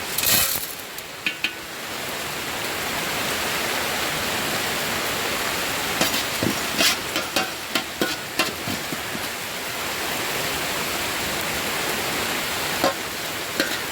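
Whole spices sizzling in hot ghee in a large pot, a steady hiss that starts a couple of seconds in, with scrapes and knocks of the stirring spoon against the pot now and then. Heavy rain falls in the background.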